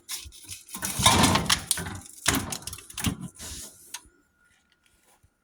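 Hands working on a freezer's plastic evaporator fan and cover: irregular rattling, knocking and scraping as ice is cleared off and the parts are handled, stopping after about four seconds.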